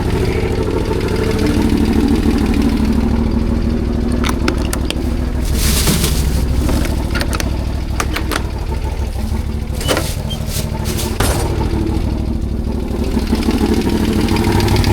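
CFMOTO CForce 1000 ATV's V-twin engine (2V91Y) running steadily, with several sharp clicks and two short bursts of noise through the middle. A knock from the second cylinder is about to be noticed, which the owner suspects comes from the valves or the timing chain and its tensioner.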